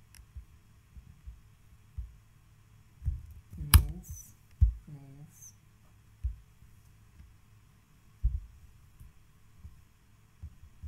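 Scattered soft low thumps and knocks, with one sharp click about four seconds in, followed by a brief murmured vocal sound.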